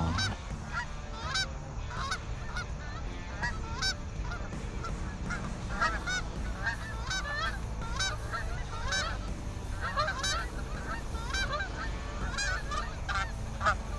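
A flock of Canada geese honking and clucking, many short calls overlapping continuously as the birds circle and settle onto the decoys.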